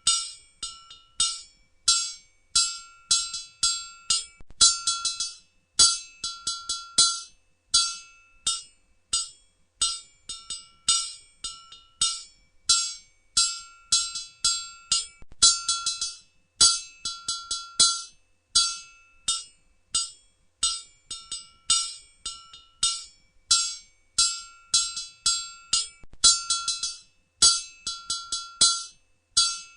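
Blacksmith's hammer striking hot metal on an anvil in a steady rhythm, about two blows a second, each blow ringing with a clear metallic tone. Many blows are followed by a quick run of lighter taps as the hammer bounces on the anvil.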